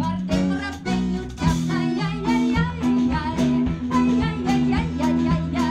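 Klezmer band playing live, with guitars strumming to a steady beat over the band's sustained melody and bass.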